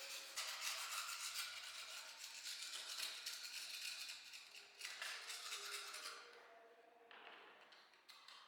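Rapid, dense scraping, made of many quick strokes, dying away about six seconds in, with a fainter scrape starting near the end.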